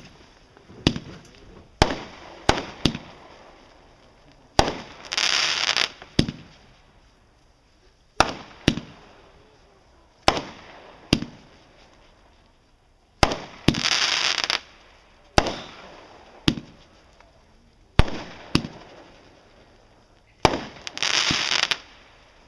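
Aerial fireworks going off: a string of about twenty sharp bangs at uneven intervals, broken three times by a hissing, crackling burst lasting about a second.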